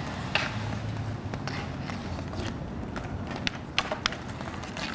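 Inline skate wheels rolling on an asphalt court, with several sharp, irregular clacks of hockey sticks hitting the ball and the ground.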